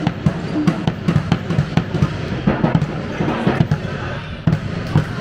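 Handball bouncing repeatedly on a sports-hall floor as players dribble during play, with thuds of feet and players' voices ringing in the hall.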